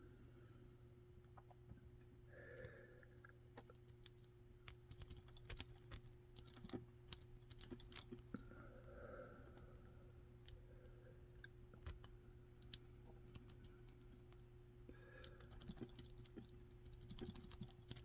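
Faint, irregular small metallic clicks and ticks of an improvised rake, bent from a clothespin spring, being worked against the pins of a padlock under tension, over a steady low hum.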